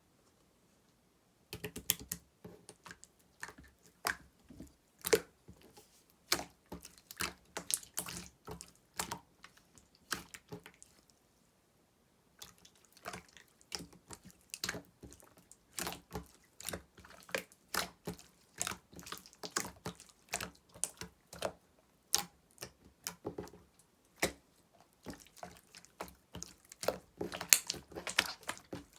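Slime being squeezed and poked by hand: a dense, irregular string of sticky clicks and wet pops, stopping briefly just after the start and again about eleven seconds in.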